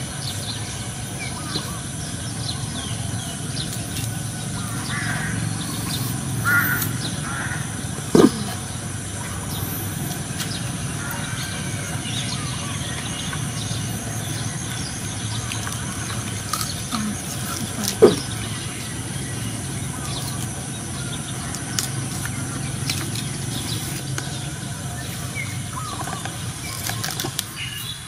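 Outdoor rural background with birds calling now and then, and two brief, loud, downward-sliding calls, one about eight seconds in and one about eighteen seconds in.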